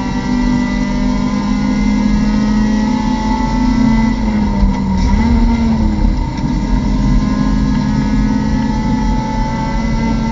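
Mazda MX-5 Cup race car's four-cylinder engine heard from inside the cockpit, running hard at high revs. About halfway through its note drops as the car brakes, rises briefly, then holds steady again.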